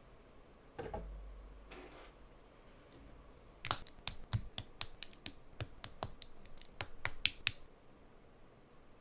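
Plastic LEGO pieces clicking: a soft rustle, then a quick irregular run of about twenty crisp clicks over nearly four seconds, like typing on a keyboard.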